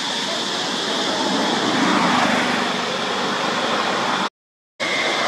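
Steady rushing outdoor background noise, swelling a little around two seconds in, with a faint high steady tone running through it. It cuts out to complete silence for about half a second near the end.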